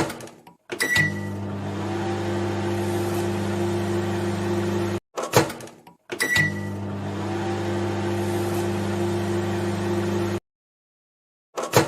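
Microwave oven sound, heard twice in a row. Each time there is a click, then a short high beep, then the oven's steady running hum, which cuts off abruptly after about four seconds.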